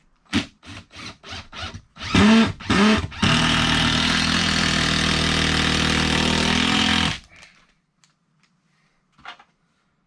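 A handheld power tool, most likely a drill or driver, spun up in two short spurts and then run steadily for about four seconds before stopping suddenly, after a few quick knocks.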